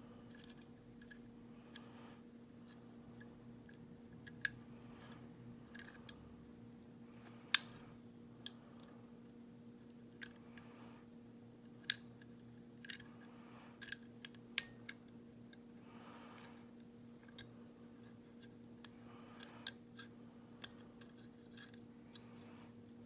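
A pick wire working inside a Corbin lever padlock, making sparse, irregular small metallic clicks as it is swept around the lever's spring point. The loudest click comes about seven and a half seconds in. A low steady hum runs underneath.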